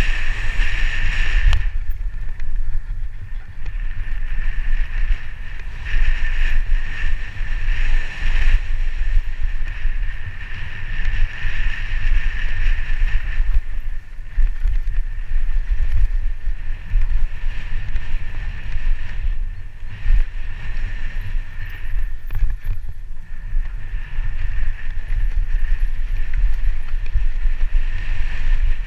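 Mountain bike descending a dirt singletrack at speed: wind buffets the head-mounted camera's microphone with a heavy rumble, over tyre and trail noise. A higher buzz comes and goes in stretches of several seconds.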